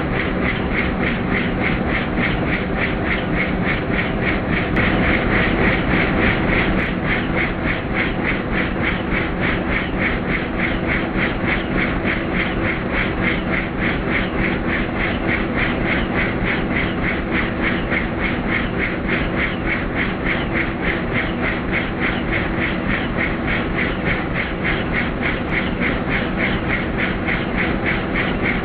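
Helicopter in flight: steady engine and rotor noise with a fast, even rotor-blade beat, swelling slightly a few seconds in.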